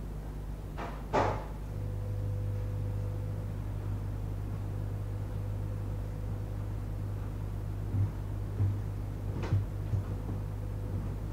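Two sharp clicks about a second in, then a few light knocks near the end, over a steady low hum.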